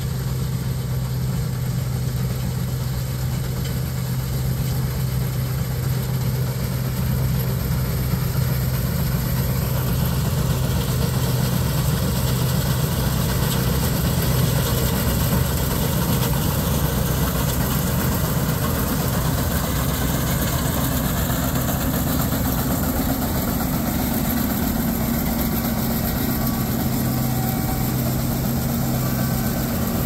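Case IH 1640 Axial-Flow combine running steadily while harvesting soybeans, a constant low engine hum growing a little louder as it draws near, with a higher hum joining in over the last several seconds.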